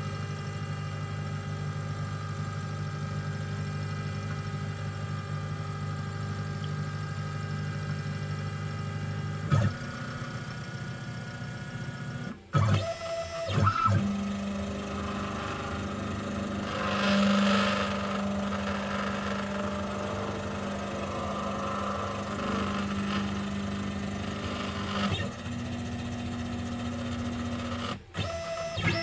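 Stepper motors of a desktop CNC machine whining steadily as the axes move through an automatic XYZ touch-probe routine, the tone shifting as the moves change, and breaking off abruptly twice.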